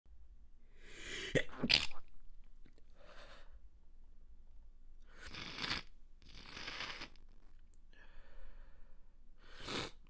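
Stifled sneezes through congested sinuses: a held-back sneeze with two sharp catches about a second and a half in, followed by several short breathy bursts, the last just before the end.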